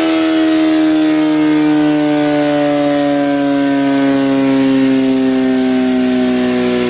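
2023 BMW S1000RR's inline-four with an Akrapovic full exhaust system, spinning the dyno roller in sixth gear as the revs come down, its note gliding steadily lower.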